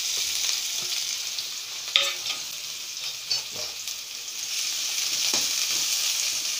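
Freshly added sliced onions sizzling in hot oil in a metal kadai, a steady hiss. A sharp tap sounds about two seconds in, with a few lighter knocks after it, as a slotted spatula starts stirring near the end.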